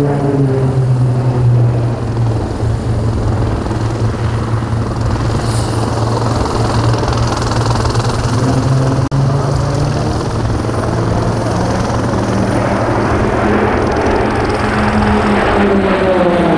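A formation of six Pilatus PC-9/A turboprop aircraft flying overhead, giving a steady loud propeller drone. The pitch falls as aircraft pass just after the start and again near the end.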